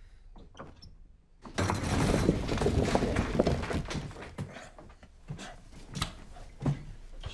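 A loud clattering crash lasting a couple of seconds, a jumble of many knocks as of household things banging and falling, starting about a second and a half in; then three separate knocks.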